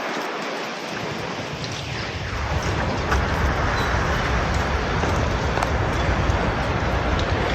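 Wind buffeting the camera's microphone: a steady whooshing rush with a deep rumble that sets in about a second in and a brief falling swish soon after. This is the 'whooshing' found only on playback and not heard on site.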